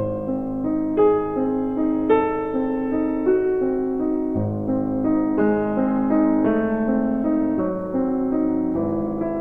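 Background piano music: a gentle, slow melody of held notes with a new phrase starting about once a second.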